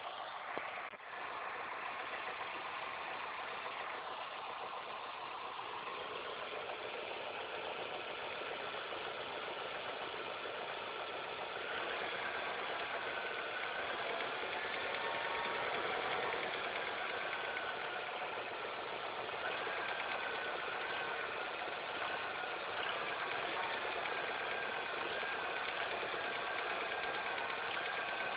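SOHC car engine idling steadily, with an abnormal noise that appeared after all the accessory belts, the timing belt and the tensioner were replaced. A wavering high whine joins in about twelve seconds in.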